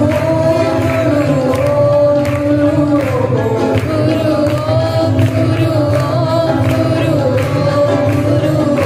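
A man sings a devotional song (bhajan) into a microphone, accompanied by his acoustic guitar. The melody moves in long held notes over a steady strummed accompaniment.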